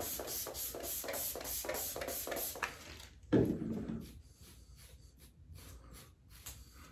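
Spray bottle of leave-in conditioner spritzing onto hair in quick pumps, about four or five a second. A little past three seconds in comes a single louder dull thump, then fainter spritzes.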